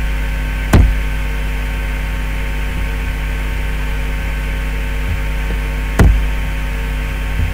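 Steady electrical mains hum with a buzzy set of overtones running under the recording. Two dull thumps break through it, one a little under a second in and one about six seconds in.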